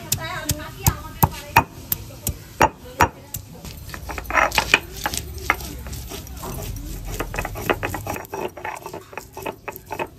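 Stone roller (nora) on a stone slab (sil-batan), crushing and grinding ginger and green chillies: a run of sharp knocks, about three a second, in the first three seconds, then faster, denser knocking and scraping strokes as the paste is ground.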